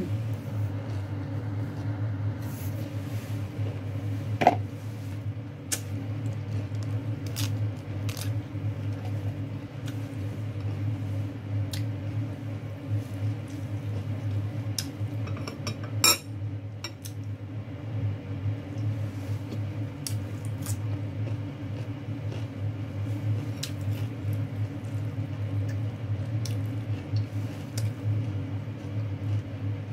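Close-up mouth sounds of chewing lettuce wraps with chicken, with scattered small clicks and two louder sharp clicks, about four and sixteen seconds in, over a steady low hum.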